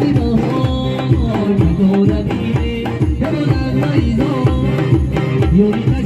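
Live Tajik folk dance music played over loudspeakers: an electronic keyboard melody over a steady hand-drum beat.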